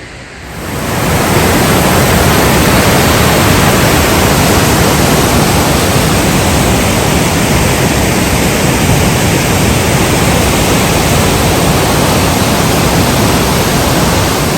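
Waterfall rushing: a loud, steady wash of falling water that comes up over about the first second and then holds.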